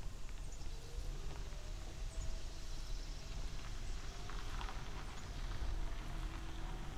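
Low wind rumble on the microphone and road noise from a recumbent trike being ridden, with scattered faint clicks and a few faint wavering tones.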